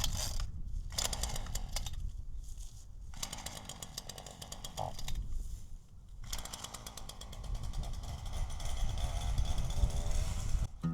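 Gas chainsaw running, revved up hard in several bursts that drop back toward idle between them, as it cuts into wood. It is loudest and most sustained toward the end.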